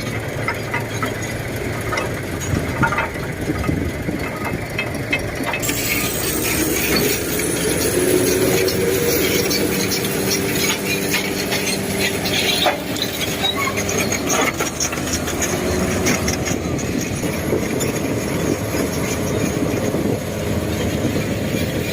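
Heavy earthmoving machine's diesel engine running steadily under a clattering of metal, with drawn-out metallic squeals from about 7 to 16 seconds in.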